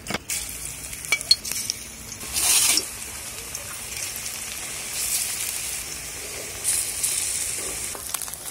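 Fig-and-gram-flour fritter batter sizzling in hot oil in a metal wok, the sizzle flaring up twice as fresh lumps of batter go in, with a few sharp clicks near the start.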